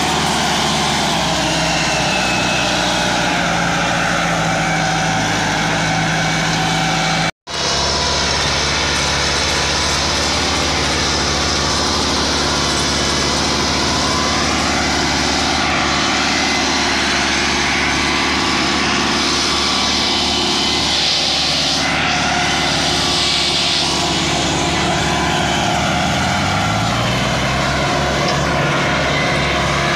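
Massey Ferguson 385 tractor's four-cylinder diesel engine running hard under heavy load, hauling a trolley loaded with sugarcane. The engine note is loud and steady, drops out abruptly for an instant about seven seconds in, and rises in pitch near the end.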